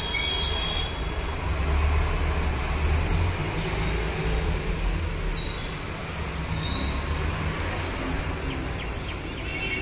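Steady rain falling outdoors, an even hiss over a low wavering rumble, with a few faint short chirps.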